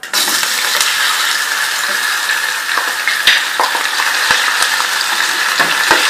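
Raw chicken pieces dropped into hot oil in a non-stick pot, setting off a loud frying sizzle that starts suddenly and keeps on, with scattered knocks of a wooden spoon stirring the pieces.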